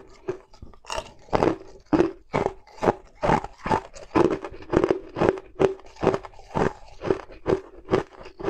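Ice cubes being bitten and crunched between the teeth, in an even run of sharp crunches about two to three a second.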